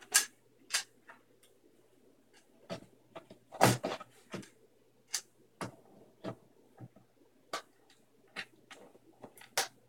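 Irregular clicks and knocks of hard plastic parts as a 24-inch computer monitor and its stand are handled, with the loudest knock a little before the middle.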